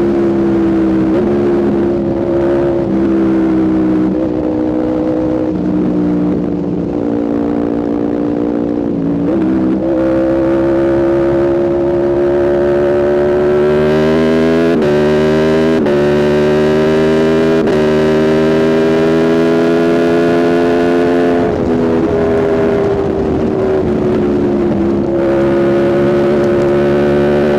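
2021 Aprilia RSV4's V4 engine through a Spark aftermarket exhaust, riding along. It cruises for the first stretch, then pulls hard with rising pitch and quick upshifts about halfway in. Near the end the rider eases off and it settles back to steady cruising.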